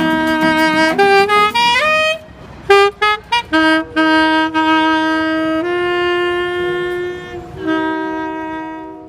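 Saxophone playing a slow melody of long held notes, with drum hits in the first two seconds. The last note fades out near the end.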